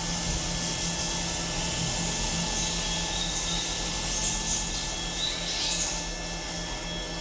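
Steady machine-shop noise from a CNC machine running: a continuous motor hum with several steady whining tones and short patches of high hiss, the hiss clearest in the middle of the clip.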